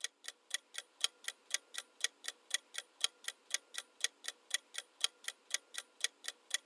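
Countdown clock sound effect ticking steadily, about four ticks a second, alternately louder and softer like a tick-tock.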